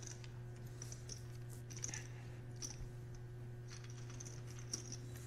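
Quiet room tone: a steady low electrical hum with faint, scattered light clicks every half second or so.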